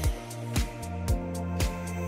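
Background music with a steady beat of about two drum hits a second over held bass notes.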